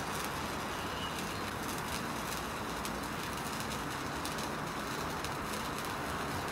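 Sparkler burning down: a steady fizzing hiss with scattered sharp crackles.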